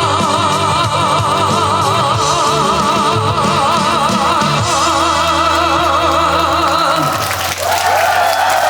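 Male trot singer holding the song's final long note with a wide, even vibrato over the live band's closing chord. About seven and a half seconds in the music cuts off and the crowd starts applauding.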